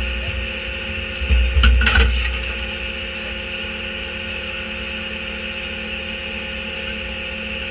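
Autocar/Leach rear-loader garbage truck's diesel engine running steadily, with a few loud wooden knocks and a thud between one and two seconds in as a piece of wooden furniture is dropped into the steel hopper.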